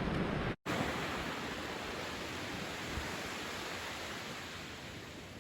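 Sea surf washing steadily onto the beach, a constant rush of noise broken by a split-second gap about half a second in.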